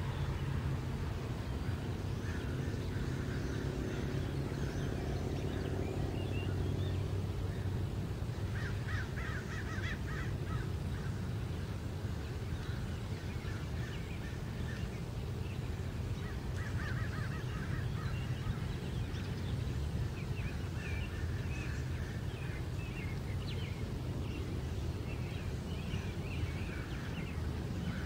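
Crows cawing a few times in raspy bursts over a steady low rumble, with a few higher bird chirps later on.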